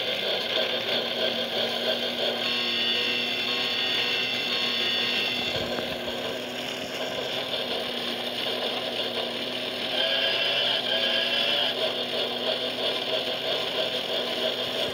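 Lionel 100th Anniversary train alarm clock running its toy train around the track: the clock's small motor and drive run steadily, a little quieter about halfway through.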